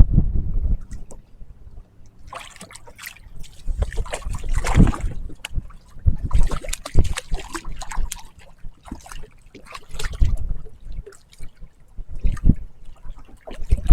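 Water splashing and sloshing irregularly around a kayak hull while a hooked fish is fought at the surface.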